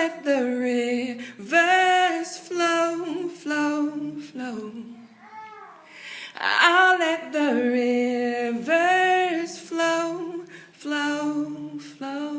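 A woman singing solo, unaccompanied: slow sung phrases with long held notes that waver in vibrato, separated by short breaths.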